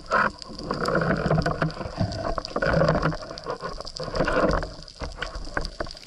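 Muffled underwater noise picked up by an action camera in its waterproof housing, rising and falling in several swells with scattered sharp clicks, as a freediver handles his speargun and its rubber bands near the lens.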